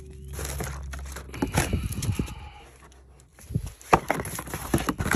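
Plastic bag and bubble wrap crinkling and rustling in a cardboard shipping box, followed by a few sharp knocks and clicks.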